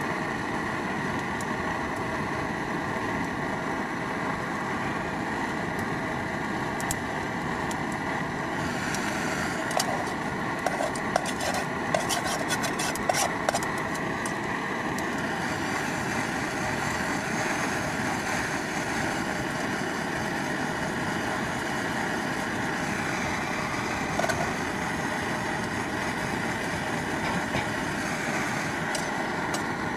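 Steady rushing noise at an even level, with a cluster of light clicks and taps about nine to fifteen seconds in and another click later.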